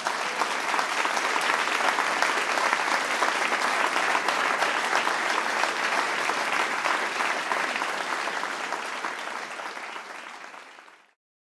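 Audience applauding, steady at first and then fading away near the end.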